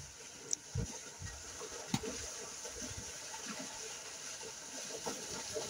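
Water and mud sloshing and splashing in a flooded paddy field, with a few irregular dull thumps and one sharp click, as water buffaloes work the field.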